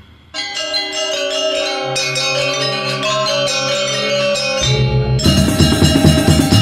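Janger gamelan ensemble playing: metallophones ring a melody of sustained bell-like notes, with a low note joining about two seconds in. Drums come in with loud, heavy strokes near the end.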